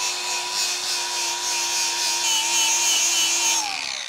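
Angle grinder running with a steady whine as its disc grinds down a fresh weld on an aluminum outboard skeg; near the end it is switched off and the whine falls in pitch as the disc spins down.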